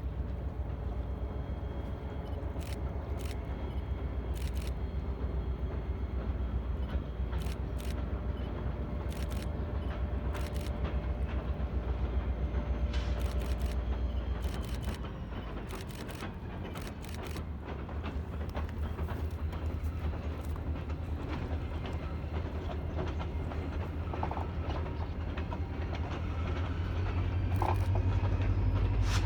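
Ballast train rolling by: a steady low rumble with sharp wheel clicks over rail joints at irregular intervals. The rumble eases about halfway through and builds again near the end.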